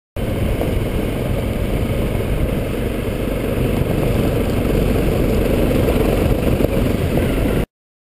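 Motorcycle engine running steadily while riding, heard from a camera mounted on the bike, with a heavy low rumble. The sound starts and stops abruptly.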